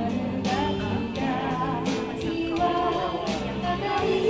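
A woman singing karaoke into a microphone over a recorded backing track with a drum beat, played back through the karaoke machine's speaker.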